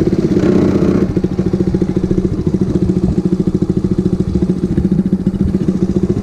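110cc super pocket bike engine idling in neutral with a fast, even putter, settling slightly after about a second.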